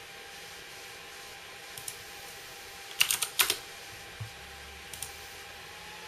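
Twin 80 mm fans of an MSI GTX 660 Ti Twin Frozr IV graphics card cooler running at high speed, around 3,300 RPM, a steady whir with a faint tone that rises slightly near the end as the fan speed is raised to 90%. A few sharp clicks cut in, the loudest a quick cluster about three seconds in.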